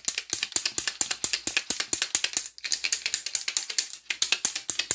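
A paint pen being shaken hard, its mixing ball rattling inside the barrel in a fast, even clatter that breaks off briefly twice.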